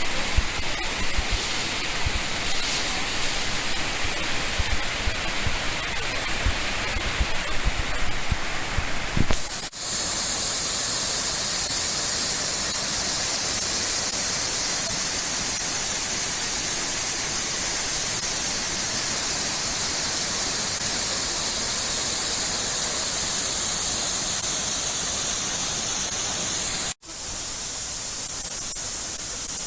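Steady rushing roar of a waterfall, Yoro Falls, in three spliced shots; the first has irregular low thumps under the rush, and the later shots are an even hiss.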